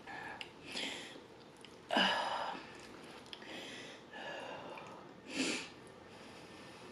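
Close-miked eating sounds: chewing and mouth noises from forkfuls of baked ziti, with a few short, sharp breaths or sniffs. The loudest comes about two seconds in.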